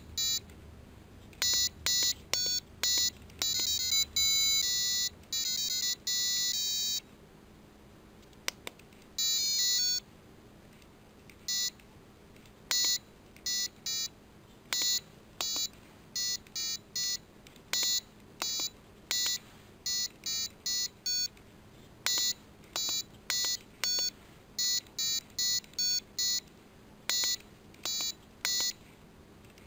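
Piezo buzzer on a SparkFun Inventor's Kit breadboard circuit sounding short electronic beeps, one tone per push-button press in a Simon Says game, with a few quicker runs of notes in between.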